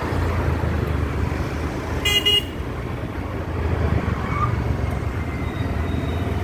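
Street traffic rumbling steadily, with one short, high vehicle horn toot about two seconds in.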